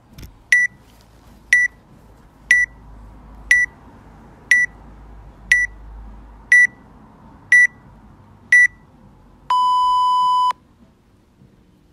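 Workout countdown timer beeping: short high beeps once a second, nine of them, then one longer, lower beep about a second long near the end that signals the start of the workout.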